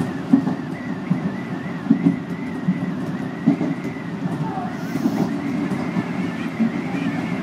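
Commuter train running, heard from inside the carriage: a steady low rumble of wheels on rail with small irregular knocks, under a steady high whine.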